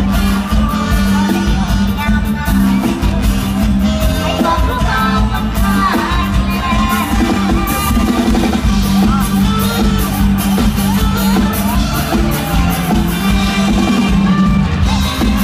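Live Isan folk-pop band playing loud over the stage loudspeakers, a woman singing the lead over a steady dance beat.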